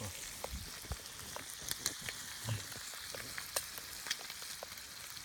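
Fish frying in a pan over a campfire: a steady sizzle with scattered sharp pops and crackles.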